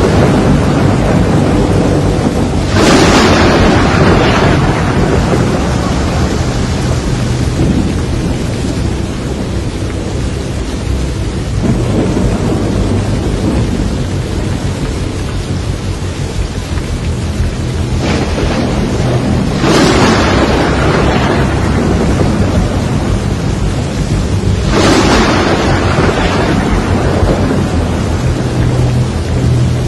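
Thunderstorm: steady heavy rain with loud thunderclaps about three seconds in, near twenty seconds and near twenty-five seconds, each rolling off over a second or two, and a weaker rumble near twelve seconds.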